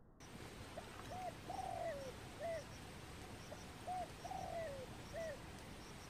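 A wild pigeon cooing: two phrases, each of a few short cooing notes around a longer note that falls away, the second phrase starting about three seconds after the first.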